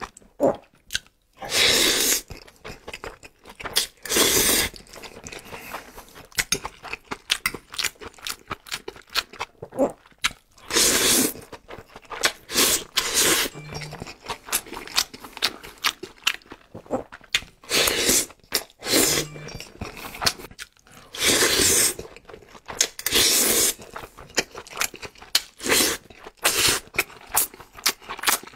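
Close-miked eating: wet chewing and lip smacking of a mouthful of saucy meat and rice, with a string of small clicks and several louder bursts of sucking food in, each lasting up to a second.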